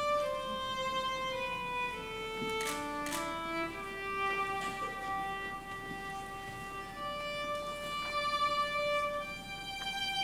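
Solo violin playing a slow melody of long held notes, stepping down in pitch over the first few seconds and then holding longer notes.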